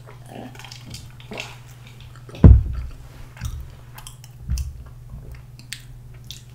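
Close-miked eating sounds: swallowing milk, then biting into and chewing a soft, cream-topped pandoro bread. A heavy low thump comes about two and a half seconds in and a softer one about two seconds later.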